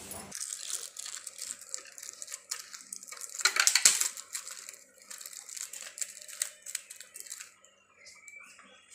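Thin plastic sheet crinkling and rustling in quick, irregular crackles as it is wrapped over the mouth of a small steel tumbler, loudest about four seconds in.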